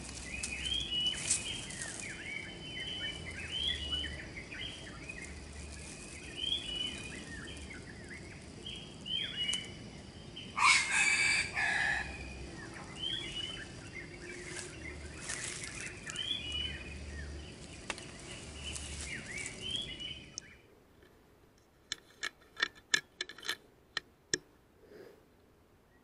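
Forest birds calling over and over, with a junglefowl crowing once about ten seconds in. Near the twenty-second mark the background drops away suddenly and a quick run of sharp clicks follows.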